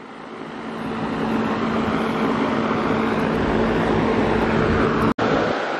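A vehicle's engine running nearby: a steady hum and rumble that builds over the first second or so, then holds, broken by a sudden cut about five seconds in.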